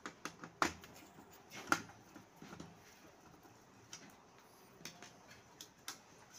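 Scattered clicks and light knocks of the plastic parts of a Canon imageCLASS MF244DW laser printer being handled during disassembly, about ten in all, the loudest two coming about two-thirds of a second and nearly two seconds in.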